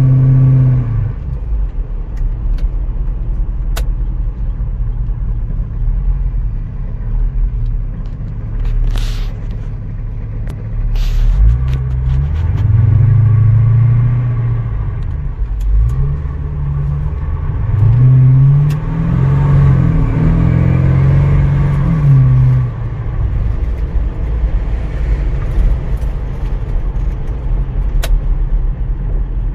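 A 1940s car driving, its engine running with a steady low drone. Through the middle the engine pitch rises and falls several times as it speeds up. A couple of sharp clicks come about a third of the way in.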